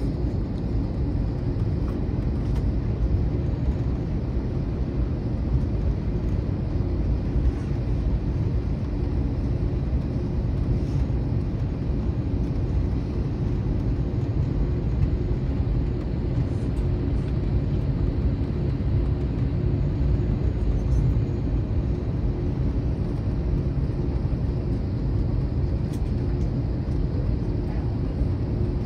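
Steady low rumble inside the passenger cabin of an Airbus A321 taxiing after landing, its engines running at idle.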